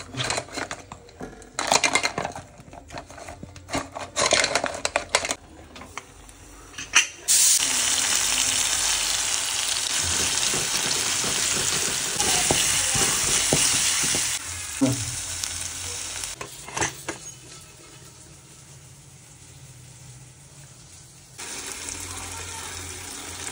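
Spoon scraping and clattering in an aluminium pot of masala-coated crab pieces, then a loud, even sizzle of frying for about seven seconds that falls away to a quieter simmer. Near the end the level steps up as the pot's contents are poured into a pan of curry.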